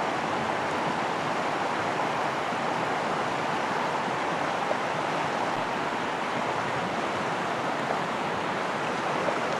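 Steady rushing of a mountain waterfall, an even wash of falling water with no breaks.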